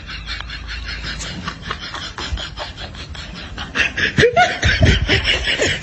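Human laughter sound effect: a person laughing in a quick string of short breathy pulses, growing louder and rising in pitch about four seconds in.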